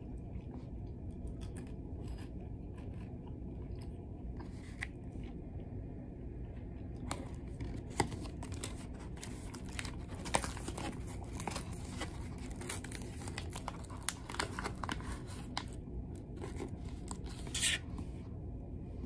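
A small plastic snack packet being torn open and crinkled by hand, a run of sharp crackles and clicks through the middle, with a short rip near the end. A steady low hum from the ferry runs underneath.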